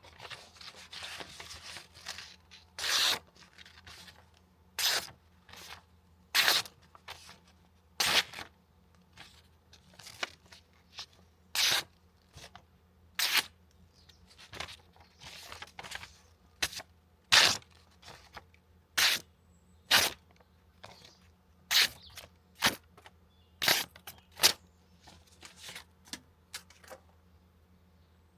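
A knife blade making a series of quick cutting strokes, each a short tearing rasp, about one every second or two, some much louder than others.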